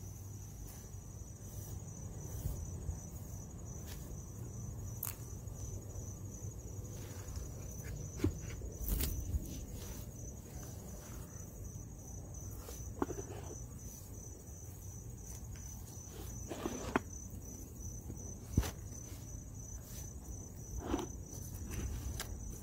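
Insects trilling steadily in a high, unbroken drone, with a few brief rubbing and handling noises from a cloth wiping down a small wooden box.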